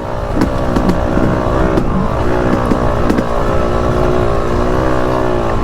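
Yamaha YZ250X two-stroke single-cylinder dirt bike engine running at a fairly steady throttle, its pitch wavering slightly with small throttle changes, with a couple of sharp knocks in the first two seconds.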